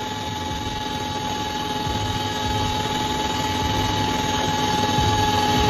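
Mi-35M helicopter in flight, heard from aboard: the steady whine of its twin turboshaft engines over rotor and airflow noise, slowly getting louder.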